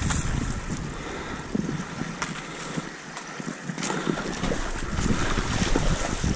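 Water rushing and splashing along a surfski's hull as it is paddled fast through choppy sea, with wind rumbling on the microphone and the splash of paddle strokes. The wind rumble eases for about a second midway.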